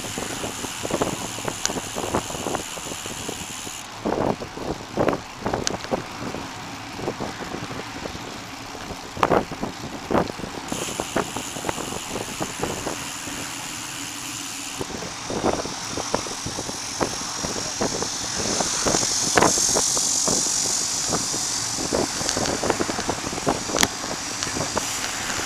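Bicycle riding along a paved cycle path, heard from a camera mounted on the bike: continuous tyre and wind noise with frequent small knocks and rattles as the bike jolts over the surface. The hiss grows louder in the second half.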